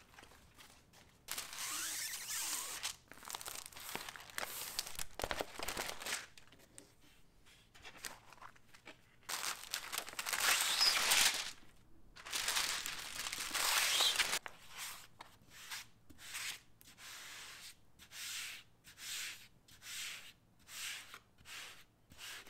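Thin plastic film sheet crinkling and rustling in several long stretches as it is handled over glass, then a run of short, regular rubbing strokes as hands smooth the static-cling film flat.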